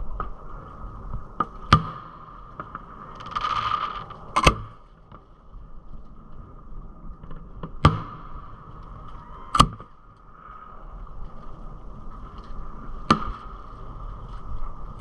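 Aerial fireworks exploding: about five sharp bangs a few seconds apart, with a brief hiss between the first two.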